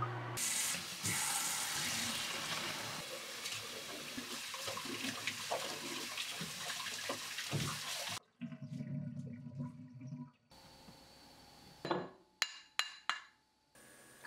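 Kitchen tap running into a plastic bowl in a stainless steel sink as cooked noodles are rinsed and rubbed by hand, a steady rush of water that stops about eight seconds in. A few sharp clicks follow near the end.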